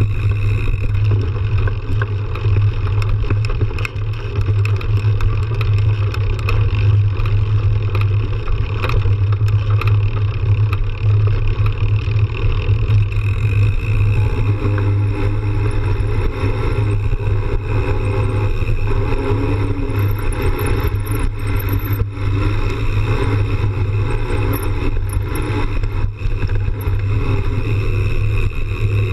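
Mountain bike riding along a dirt trail, heard close to the front tyre: a loud, steady rumble of tyre on dirt and gravel, with frequent small clicks and knocks from the bike.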